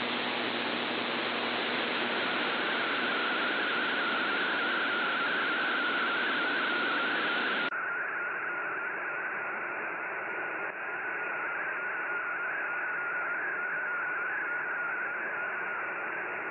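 Shortwave AM receiver picking up an MFSK32 digital picture transmission: steady static hiss with the faint warbling of the MFSK tones in the middle of it. About eight seconds in, the hiss suddenly turns duller as its top end is cut off.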